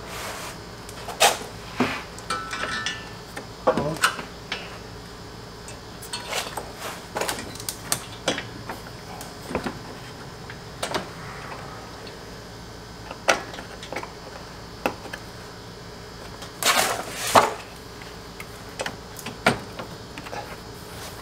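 Scattered clicks and knocks of a car AC condenser being handled and seated by hand into the radiator support, with two louder knocks about three-quarters of the way in, over a steady background hum.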